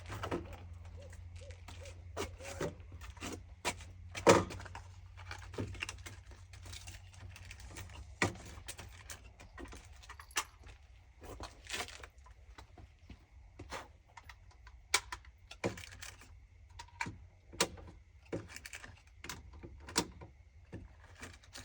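Scattered clicks, clinks and knocks of equipment being handled, the loudest a sharp knock about four seconds in, over a steady low rumble.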